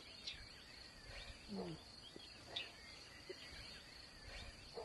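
Faint field ambience: insects chirring steadily on one high note, with scattered faint bird chirps.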